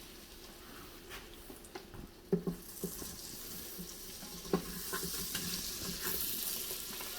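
Butter sizzling as it melts in the Instant Pot's stainless inner pot on sauté, the hiss building after about two seconds. A few sharp knocks come from a utensil stirring against the pot.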